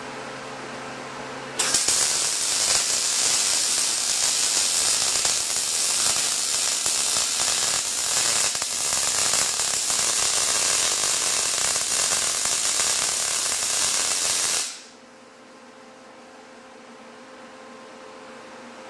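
Wire-feed welder arc burning a weld bead on steel square tube: a steady crackling hiss that starts abruptly about a second and a half in and cuts off suddenly about thirteen seconds later. A faint steady hum from the welder runs before and after the arc.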